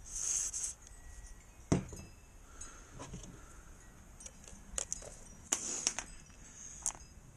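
Hands and small metal tools working on a hose and hose clamp: scattered small metallic clicks and clinks with brief rustling, and one sharper knock about two seconds in.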